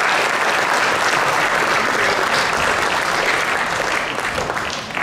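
Audience applauding: a dense, steady crowd of hand claps that begins to thin slightly near the end.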